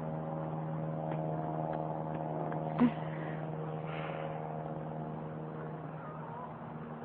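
Light propeller airplane flying over, its engine a steady droning hum that slowly fades. A brief sharp sound about three seconds in.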